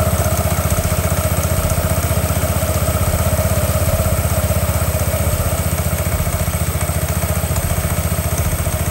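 Yamaha NMAX 155's single-cylinder engine idling steadily with the CVT cover off, the variator pulley and drive belt spinning in the open, a steady whine over the engine's even pulse. The owner reckons the belt may be due for replacement.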